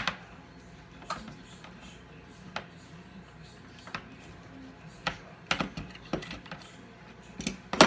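Kitchen utensils and containers clicking and knocking on a counter as fudge ingredients are measured out: scattered light taps about once a second, then a quicker run of louder knocks near the end.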